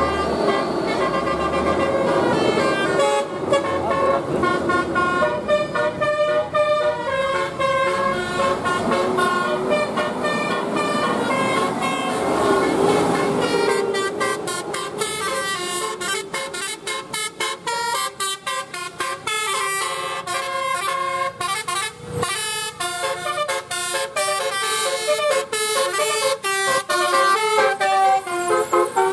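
Bus 'telolet' horn, a set of multi-tone electric-valve air horns, playing a melody of changing notes. The notes are held longer at first, then from about halfway come quick and short in a rapid, stuttering rhythm.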